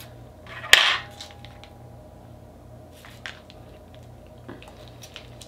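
A plastic pouch of warmed jalapeño Velveeta cheese sauce torn open with one short, sharp rip about a second in, then faint crinkling and squishing as the sauce is squeezed out.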